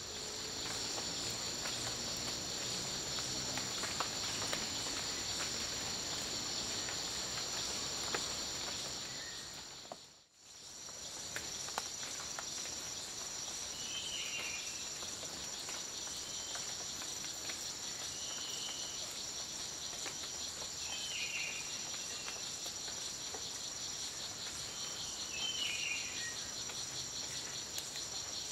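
Steady chorus of forest insects, a high-pitched trilling hiss in several stacked bands, which drops out briefly and returns about a third of the way in. In the second half a bird gives five or so short, falling chirps.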